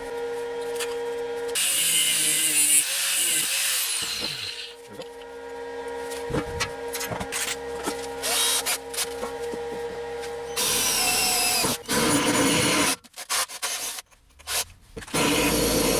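A power tool's motor running with a steady hum, bearing down on metal in loud, harsh spells about two seconds in and again near eleven seconds, then several short spurts near the end.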